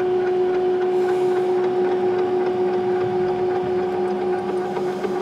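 3018 desktop CNC's stepper motors driving an axis at constant speed, a steady whine, as the machine sweeps a dial indicator across the bed to check the tram.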